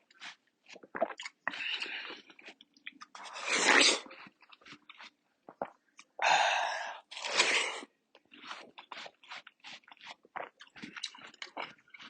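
A person biting into and chewing watermelon close to the microphone. There are many short wet crunches and clicks, and three louder, longer crunching bites: one about four seconds in and two more a little past the middle.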